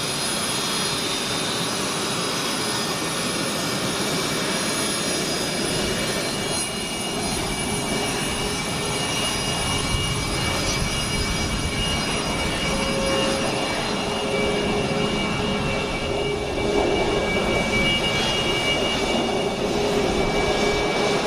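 Jet aircraft engine noise: a steady rushing roar with high, steady whining tones, growing slightly louder near the end.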